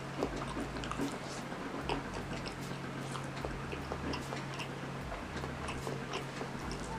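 Close-up mouth sounds of chewing rice and spicy meatballs with the mouth closed, with many small wet clicks and smacks over a low steady hum.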